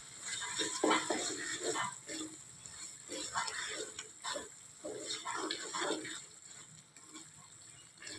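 Wooden spatula stirring a thick, wet curry of pumpkin and soya chunks in a metal kadhai: irregular squelching strokes, with the spatula scraping against the pan.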